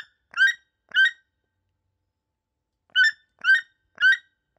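Toucan calling: a series of short, identical calls about two a second. Three come at the start, then a pause of about two seconds, then three more near the end.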